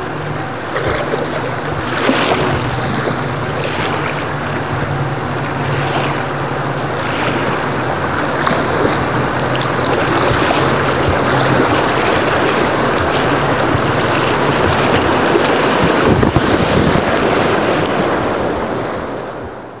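River water rushing and splashing around a kayak, with wind buffeting the microphone, heard through a waterproof camera housing; the sound cuts off abruptly at the end.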